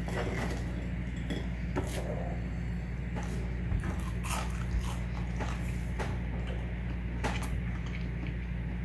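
A metal fork cutting through a crispy fried mackerel croquette and clicking against a plate, then chewing of the crunchy patty, as scattered small clicks and crackles. A steady low hum runs underneath.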